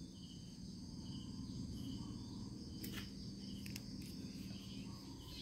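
Quiet background: a steady high-pitched chirring with a low hum underneath, and a couple of faint clicks about three seconds in.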